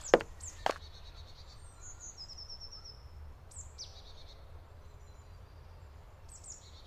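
Forest ambience: songbirds calling, with scattered chirps and a short trill of repeated notes about two seconds in, over a low steady rumble. A few sharp clicks sound in the first second.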